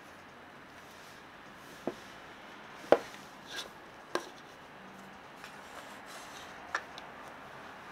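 Handling noise: a camera with a metal lens is set down on a cloth-covered table and a plastic lens case is put beside it. A few light knocks and clicks with a short scrape, the loudest knock about three seconds in.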